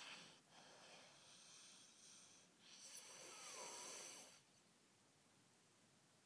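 A young child snoring and straining to breathe in his sleep, his airway obstructed by enlarged tonsils and adenoids. Noisy breaths at first, then one louder breath from about three seconds in to about four and a half seconds in.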